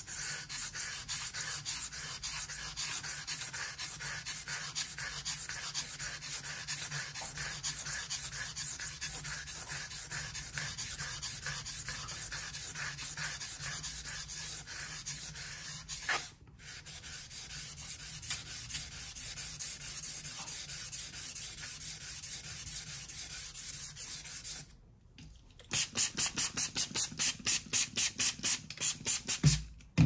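Steel blade of a Victorinox garden knife pushed back and forth on a wet Shapton Kuromaku whetstone: even, rhythmic scraping strokes of steel on stone, stopping briefly twice. Near the end the strokes are louder and more separate, about four a second.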